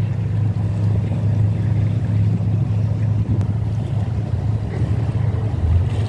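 Boat engine running steadily as a low drone, over wind and water noise.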